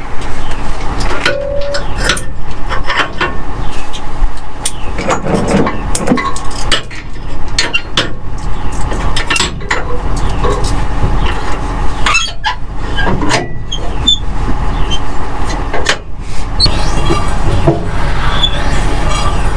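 A vehicle under way, its engine running steadily, with frequent rattles and clanks throughout.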